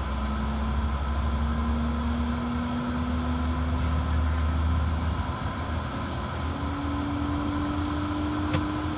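Jet airliner engines heard inside the cabin on the ground: a steady low rumble with an engine whine that rises slowly and evenly in pitch.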